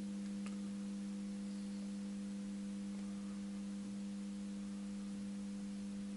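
Steady electrical hum: a low buzz made of a few held tones that stays unchanged, with one faint click about half a second in.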